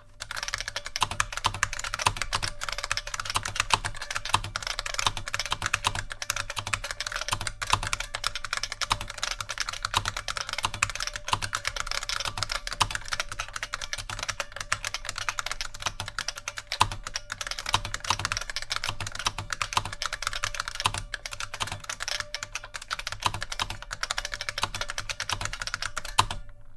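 Continuous fast typing on an IBM 5291 Model F "Bigfoot" keyboard with capacitive buckling-spring switches: a dense, unbroken clatter of clicking keystrokes that stops just before the end.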